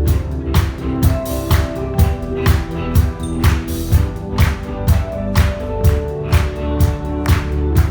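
A live band playing, with drums keeping a steady beat of about two strikes a second under sustained chords.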